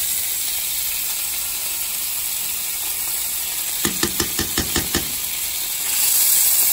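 Butter sizzling as it melts in a hot nonstick frying pan. A metal spoon taps against the pan in a quick run of about seven taps around four seconds in. The sizzle grows louder near the end as the butter starts to bubble.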